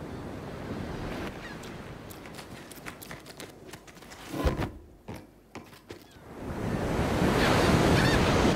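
Ocean-wave rush sound effect: a breaking wave swells up and is loudest near the end. Before it come a soft hiss with scattered clicks and a sharp thump about halfway.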